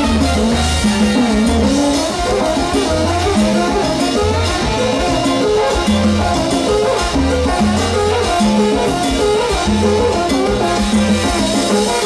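A live salsa band plays an instrumental passage, with no singing. A repeating electric bass line runs under busy melodic lines, with percussion keeping the rhythm throughout.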